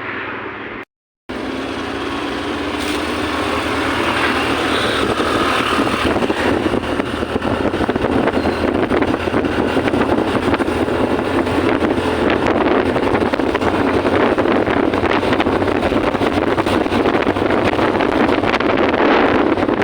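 An engine running steadily while travelling, with wind rushing on the microphone, cut by a brief drop-out about a second in.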